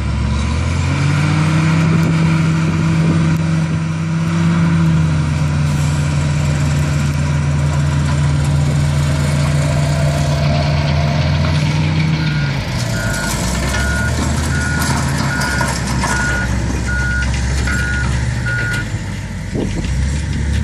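Heavy diesel engines of a wheel loader and a dump truck running, one held at high revs for about eleven seconds before it drops back. After that a back-up alarm beeps about eight times, a little over once a second.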